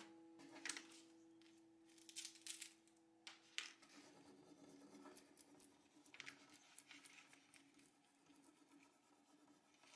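Faint scratching and scraping of a small hand tool rubbing a rub-on floral transfer onto a chalk-painted wooden tabletop, in short irregular strokes. A held note of background music fades out in the first few seconds.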